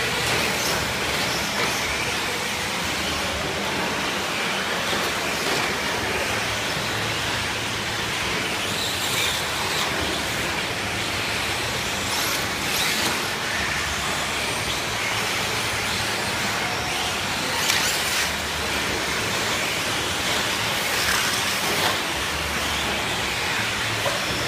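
Electric 4x4 short-course RC trucks racing on a dirt track: a steady, noisy wash of motors and tyres, with a few sharp knocks from the trucks, the loudest about 18 seconds in.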